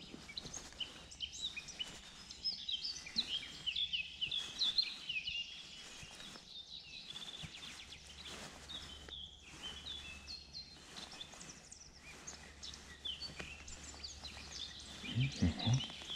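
Wild birds singing: many short chirps and trills, dense throughout, over a faint steady low background.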